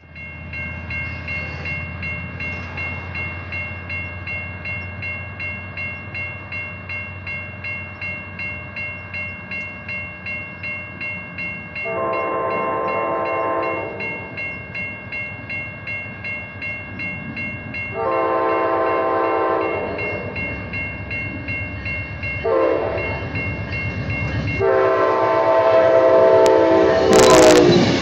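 Railroad grade-crossing bell ringing steadily while an approaching Amtrak passenger train blows its horn in the long, long, short, long pattern that warns of a crossing. Near the end the locomotive passes, loud and rushing.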